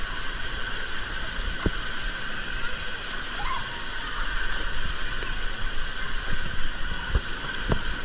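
Steady rush of water in a pool, with splashing from children wading and swimming.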